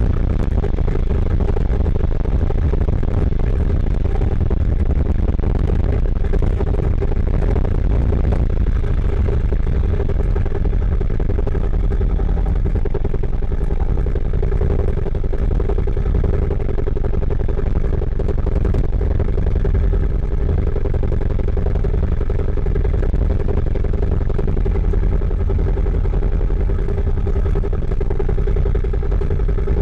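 Cagiva River 600's big single-cylinder engine running steadily on the move, picked up by a microphone tucked in a fleece glove inside a side pannier. It sounds muffled yet heavily distorted, because the recording level is clipping.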